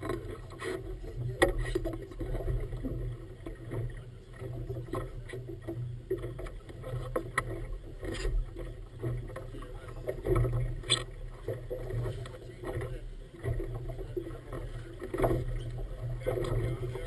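Choppy water slapping and splashing against the hull of a small inflatable boat, in an uneven wash, with a few sharp knocks, the loudest about a second and a half in.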